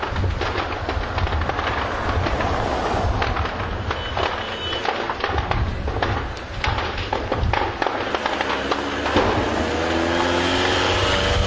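Motor vehicle engine running, with a heavy low rumble and rattling; near the end the engine's pitch climbs as it speeds up.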